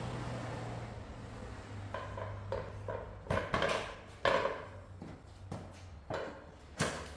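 A drywall compound tube being filled with cornice cement from a bucket: a run of short wet squelching sounds, with a sharp knock about four seconds in.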